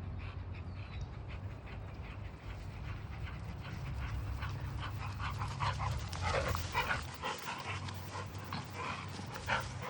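American bully dog panting and moving about, with quick scuffs and scrapes from about four seconds in, as of paws in dry dirt. There is a steady low hum underneath.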